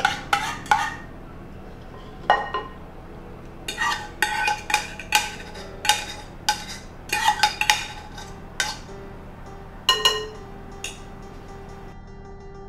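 A metal spoon clinking and scraping against a ceramic bowl in quick, irregular strikes, each with a brief ring, as beaten egg is scraped out into a mixing bowl. Soft background music comes in near the end.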